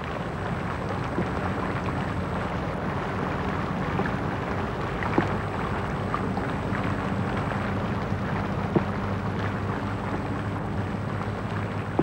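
Steady rain falling on shallow water and wet ground: an even hiss of many small drops, with a couple of sharper taps standing out.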